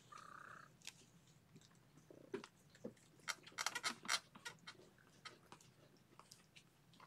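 Kittens wrestling and play-biting: faint scattered clicks and rustling, with a quick run of clicks about halfway through and a short squeak at the very start.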